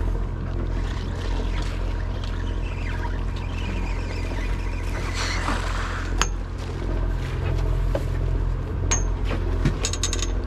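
A party boat's engine running with a steady low hum. A few sharp clicks come in the second half.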